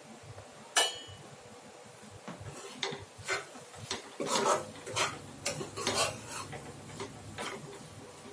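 A steel spoon stirring a thick tomato-onion masala in a stainless steel kadai, scraping and clinking against the pan. There is one sharp clink about a second in, then irregular scrapes and knocks from about two seconds in, thickest in the middle.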